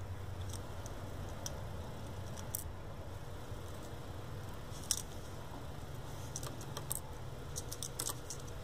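Scattered light clicks of stainless steel tweezers handling a small surface-mount voltage regulator on a circuit board, with one sharper click about five seconds in and a quick cluster near the end, over a steady low hum.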